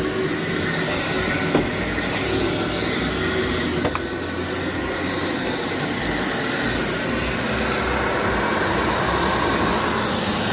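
Canister vacuum cleaner running steadily over dirty carpet, with a couple of sharp clicks.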